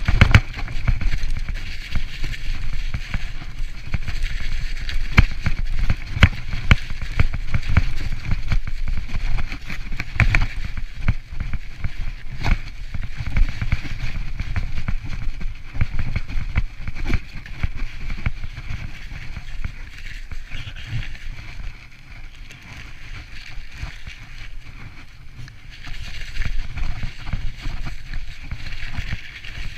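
Mountain bike rolling downhill over rough, snow-covered ground: a steady low rumble with frequent knocks and rattles as it hits bumps. It goes quieter for a few seconds past the middle, then picks up again near the end.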